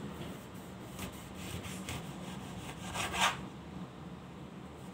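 Chef's knife slicing through orange peel and fruit on a wooden cutting board, a soft rasping cut with a few light knocks of the blade on the board, the loudest a little after three seconds in.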